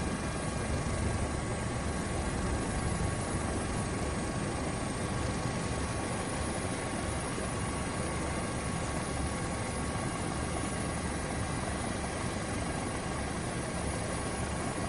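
Helicopter running steadily: dense rotor and engine noise with a constant high whine, unchanging in level.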